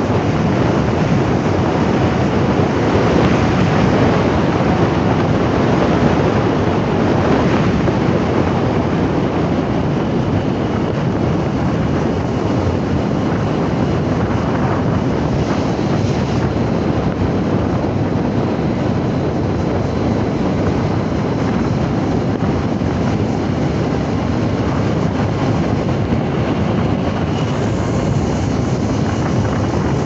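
Steady rushing noise of a car travelling at highway speed: tyre and road noise mixed with wind buffeting the microphone.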